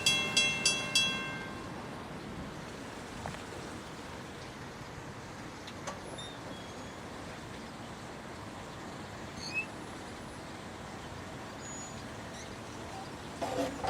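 Railroad crossing warning bell ringing at about three strikes a second, then stopping about a second in. The crossing is activating with no train in the area, a malfunction. A few faint bird chirps follow, and near the end phone keypad dialing tones begin.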